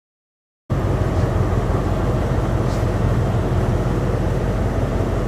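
Diesel train engine idling with a steady low hum, starting abruptly just under a second in after silence.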